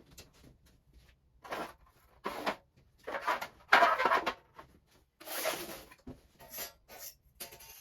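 Workshop handling noises: a series of scrapes, rustles and light knocks as parts are moved about, the loudest a longer scrape in the middle.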